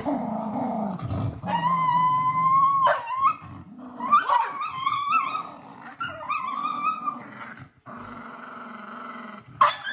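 Two pet dogs, a beagle and a jackabee, tussling over a toy: low growling, broken by several long high-pitched whines that rise and fall, then low growling again near the end.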